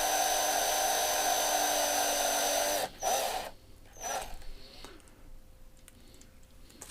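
Small electric drill running steadily as it drills out the rivet posts of a diecast toy car. It stops about three seconds in, followed by two brief spurts of the drill.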